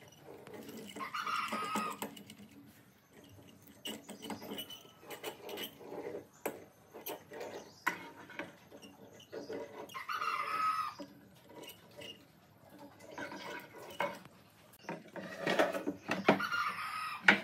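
Hand scraper drawn along the glued seam of a hardwood panel, scraping off glue squeeze-out in long strokes a few seconds apart, some with a squeaky edge. Knocks of wood being handled near the end.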